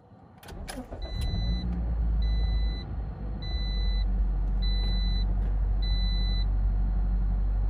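Toyota Corolla four-cylinder engine starting about a second in and settling into a steady fast idle near 1,800 rpm, the high idle of a cold engine. Over it, a dashboard chime beeps five times at an even pace.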